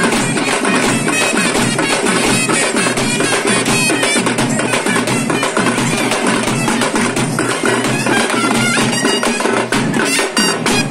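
Loud traditional festival music driven by fast, dense drumming.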